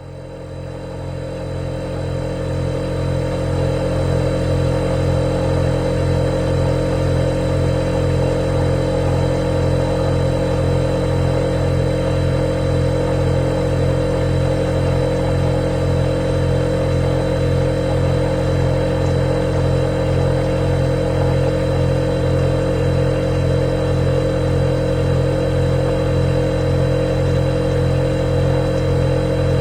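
Refrigerator running with a steady hum and a faint high-pitched tone above it, fading in over the first few seconds.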